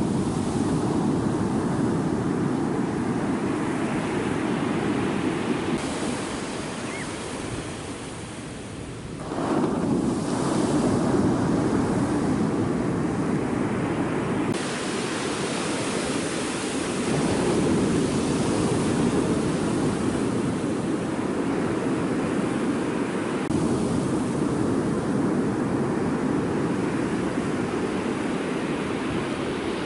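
Ocean surf breaking on a sandy beach: a continuous wash of waves, with a short lull about eight seconds in before the next wave crashes in.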